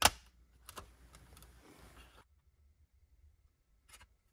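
A sharp plastic click as hand-pressed parts of a plastic model truck kit seat together, followed by a couple of softer clicks and handling rustle for about two seconds, and one small tick near the end.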